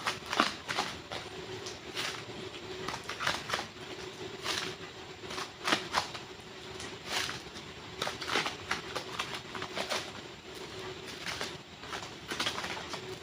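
Air-dry super clay being handled by hand, squeezed and stretched: irregular soft crackles and squishy clicks, sometimes several in quick succession, over a faint steady hum.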